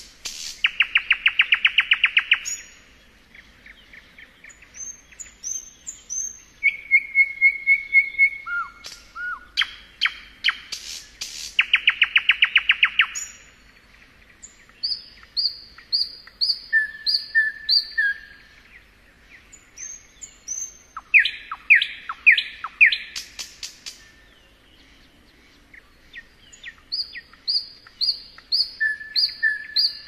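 Nightingale singing in varied phrases separated by short pauses: loud, fast trills of rapid notes and runs of repeated whistled notes.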